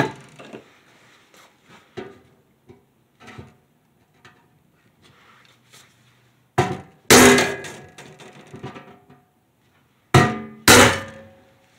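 Hammer striking a punch held on a steel ammo can, centre-punching a hole mark so the drill bit won't walk: four sharp, ringing metal strikes in two pairs, about six and a half and ten seconds in. Before them comes light clatter of tools being handled.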